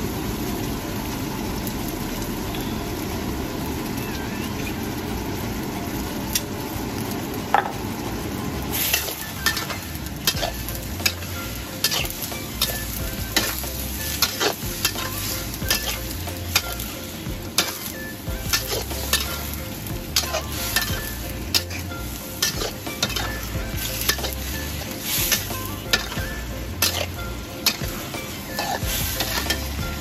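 Squid and shrimp sizzling in a hot wok. From about nine seconds in, a metal spatula repeatedly scrapes and clanks against the wok as the seafood is stir-fried.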